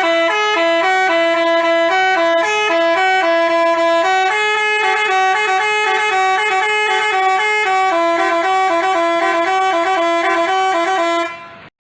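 Basuri telolet multi-tone bus horn playing a tune: a quick series of steady notes stepping between pitches, stopping shortly before the end.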